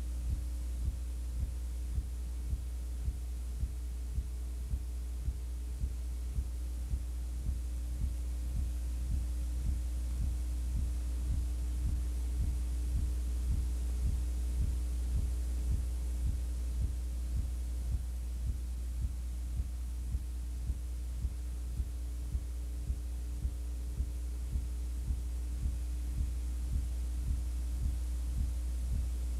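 Steady low electrical hum with a faint higher tone, pulsing about twice a second, with no game sound or commentary: the noise floor of an old analog videotape transfer whose audio track carries no program sound.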